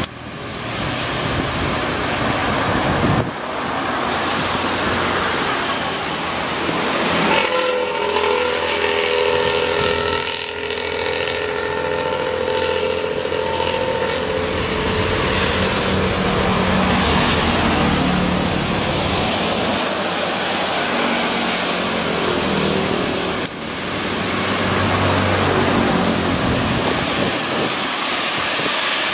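Road traffic with buses passing: engine and tyre noise under a heavy rush of wind on the microphone. For several seconds in the middle, a bus's multi-tone 'telolet' air horn plays. The sound changes abruptly a few times.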